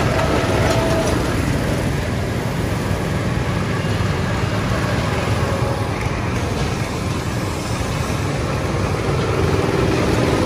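Small go-kart engines running steadily as karts lap the track, with a low continuous rumble; a kart engine grows more distinct near the end as it passes close by.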